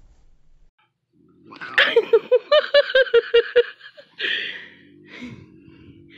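A woman laughing in a quick run of about ten short 'ha' bursts, followed by a short breathy hiss.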